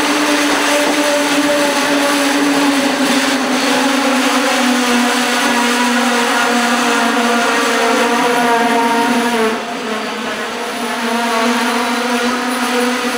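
Passenger train rolling slowly past along the platform, with a loud, steady whine of several tones that drops a little in pitch about five seconds in. The whine dips briefly in loudness near ten seconds.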